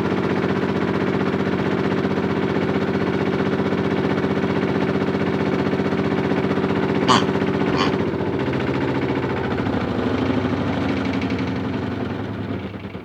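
Small electric motor of a toy washing machine running steadily as the drum turns, with two short clicks about seven seconds in; after about eight seconds the hum shifts in pitch and it dies away near the end as the machine slows.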